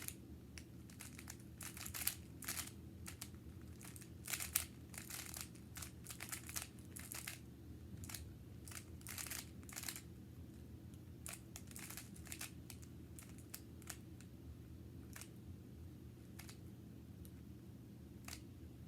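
Rubik's cube being turned fast during a speed solve: quick plastic clicks and rattles of its layers, in bursts of several turns with short pauses, thinning out in the second half.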